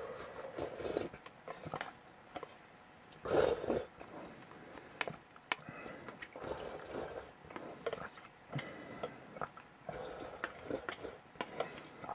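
Chopsticks and a plastic noodle bowl knocking and clicking together, with scattered irregular taps and light scraping.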